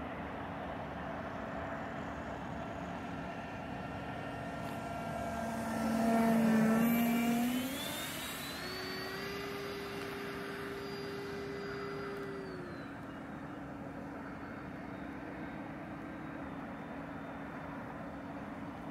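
Electric ducted fan whine of a 90mm RC F-86 jet in flight. It grows loudest as the jet passes close about six to seven seconds in, its pitch shifting as it goes by, then steps down in pitch about two-thirds of the way through.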